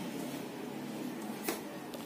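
Steady room noise with one sharp click about one and a half seconds in.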